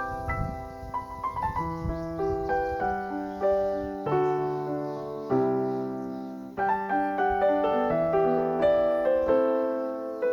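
Background piano music: gentle, slow struck notes and chords that ring and fade.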